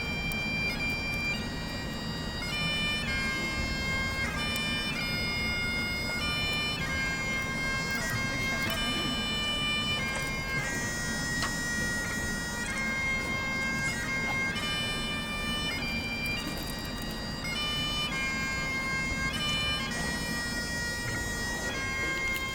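A solo Great Highland bagpipe plays a slow tune, one note at a time, each held about a second, over the pipes' steady drone.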